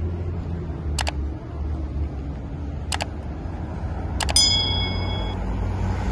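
City road traffic passing in a steady low rumble of cars and a motor scooter. Sharp clicks cut through about one and three seconds in, and a little past four seconds a click is followed by a brief ringing ding lasting about a second.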